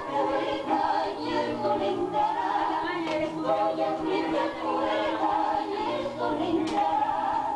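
Music with several voices singing together over held low notes.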